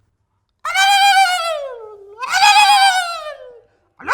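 Goat bleating: two long, wavering calls, each dropping in pitch as it fades.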